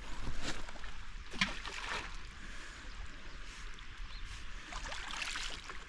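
Small ripples of calm sea water lapping and trickling over a pebble shore, a steady gentle wash.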